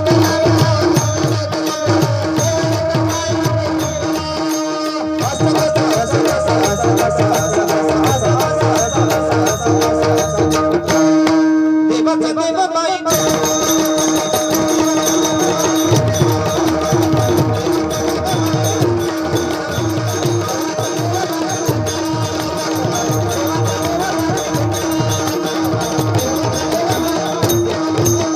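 Tabla playing a brisk rhythm under a steady held drone note, as accompaniment to a Marathi gaulan bhajan. About eleven seconds in, the deep drum strokes drop out for roughly two seconds while the held note carries on, then the rhythm resumes.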